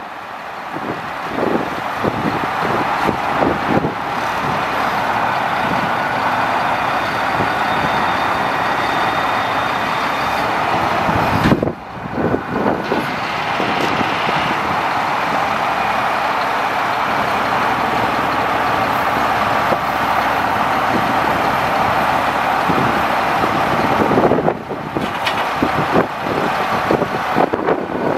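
Caterpillar C7 diesel engine of a Sterling L8500 grapple truck running steadily while its hydraulics swing and lower the grapple boom, with two brief dips in the sound.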